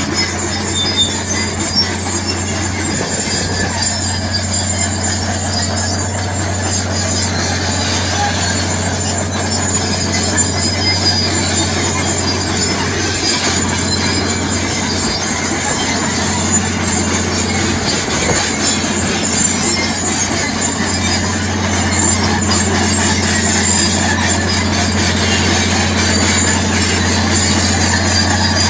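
Tracked crawler tractor pulling a deep plough through dry soil under load: a steady, loud diesel drone with a high metallic squeal from the steel tracks running over it.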